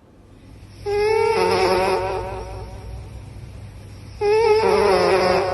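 A cat snoring close to the microphone: two long snores about three seconds apart, each a held, slightly wavering tone.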